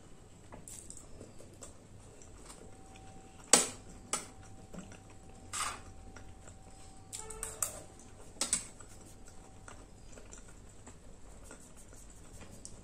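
Close-miked eating: a steel spoon clicking now and then against a steel plate of chickpea curry, with soft chewing and mouth sounds. There are a handful of sharp clicks, the loudest about three and a half seconds in.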